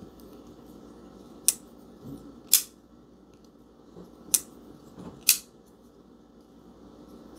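A small liner-lock folding knife, the IVIVI Baby Banter, repeatedly snapped open and shut on its bearing pivot: sharp metallic clicks in pairs about a second apart, two pairs, with another click at the very end.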